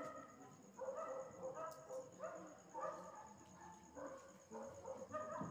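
A dog barking faintly over and over, about two short barks a second.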